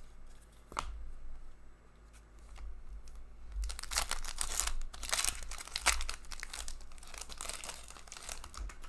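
Foil hockey-card pack wrapper being torn open and crinkled by hand, a run of crackling from about three and a half seconds in until near the end. A single click comes just under a second in.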